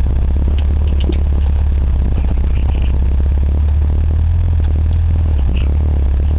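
Off-road vehicle's engine running with a steady low drone, heard from inside the cab, while the body rattles and clatters continuously over a rough dirt trail, with a few sharp clicks.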